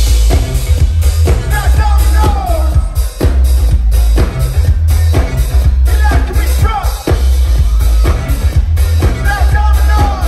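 Live alternative dance-rock band playing loudly over a PA: a steady drum beat under heavy bass, with synth and gliding melodic lines on top.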